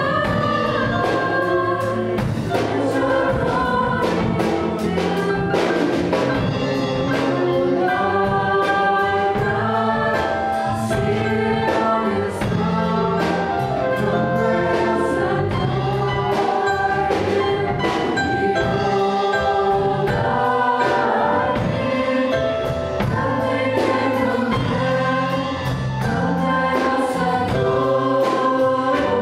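A mixed group of singers performing a worship song in parts, backed by a band with piano, electric bass and a drum kit keeping a steady beat.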